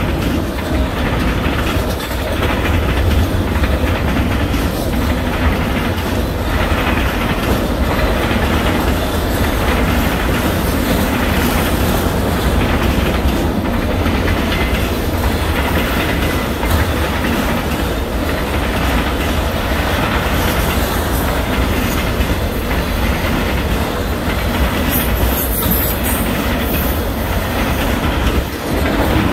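Freight train of autorack cars rolling past with a steady rumble, its wheels clacking over the rail joints.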